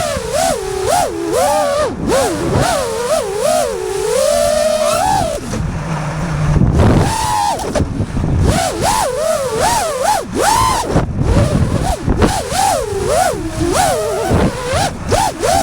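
FPV quadcopter's brushless motors whining, the pitch swooping up and down quickly as the throttle is worked, with wind rush over them. About six seconds in the whine drops away for a moment, leaving a lower hum and rushing air, then climbs back.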